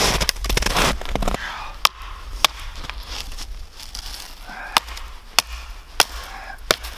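A second of rustling, then six sharp snaps or cracks spread unevenly over about five seconds, with soft crunching between them.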